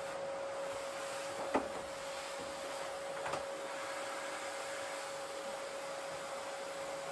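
Corded vacuum cleaner running steadily, its motor giving a constant whine over a hiss. Two short knocks come about one and a half and three seconds in.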